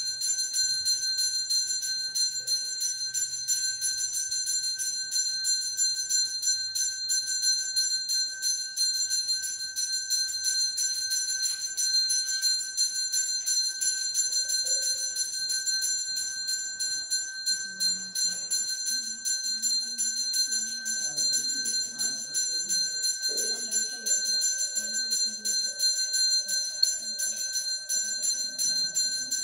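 Brass temple bell rung rapidly and without a break during an abhishekam, the ritual bathing of the idols. Its strokes merge into one continuous, steady ringing.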